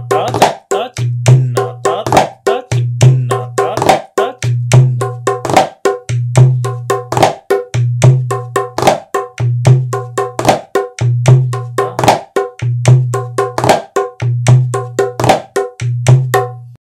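Dholak playing a dadra taal theka in a daf-style pattern (ta, trak, ta, chik, tun): quick sharp slaps and rolls over a low bass boom that comes back about once a second, kept up steadily without a break.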